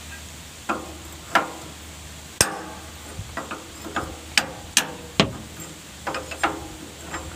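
Hand hammer striking steel tools at an excavator's hydraulic hose fitting: about a dozen irregular, sharp metallic clanks, each with a short ring. The mechanic is knocking the fitting loose to replace its burst O-ring.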